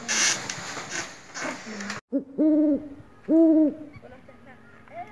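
A stretch of rustling noise, then, about two seconds in, an owl hooting twice, each hoot about half a second long with a slight rise and fall in pitch.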